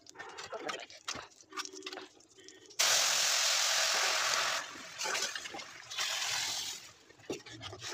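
Dal poured into hot oil in a kadhai on a wood fire, sizzling: the sizzle sets in suddenly about three seconds in, eases a little after a couple of seconds and dies away near the seven-second mark.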